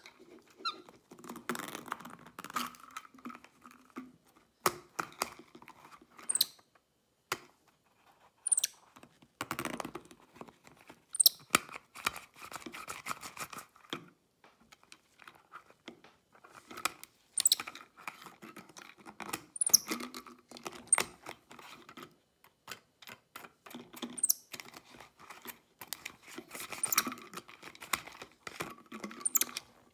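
Plastic screw cap and plastic bottle handled by a capuchin monkey twisting the cap off and on: irregular clicks, taps and scrapes of the cap on the threaded neck and the bottle against the table, with a few short high squeaks.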